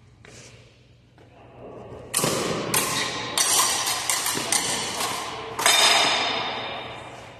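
Rapier blades clashing in a quick run of sharp strikes from about two seconds in. The last and loudest strike near the end leaves a fading metallic ring.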